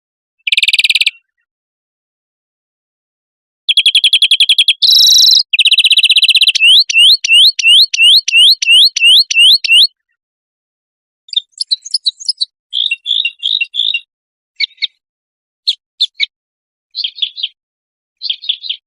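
Recorded songbird song: loud rapid trills, then a run of repeated upward-hooking whistled notes, about two a second, then scattered short chirps. Dead-silent gaps lie between the phrases.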